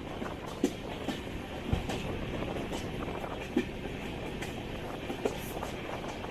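LHB passenger coach running at speed, heard from inside: a steady rumble of the wheels on the track, with a few irregular knocks as the wheels pass over rail joints, the strongest a low thump nearly two seconds in.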